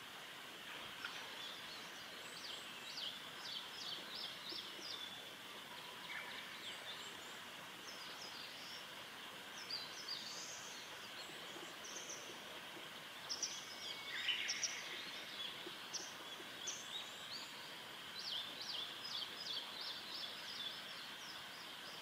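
Wild birds calling in the background: many short, high chirps and trills, more of them near the start and the end and loudest a little past the middle, over a steady high hiss of ambient noise.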